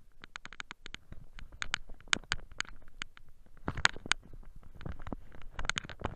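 Footsteps crunching through snow: a run of short, sharp, irregular crunches, loudest a little before four seconds in.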